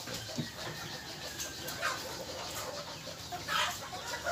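Mixed-breed chickens clucking in a pen, with a couple of short sharp calls about two and three and a half seconds in.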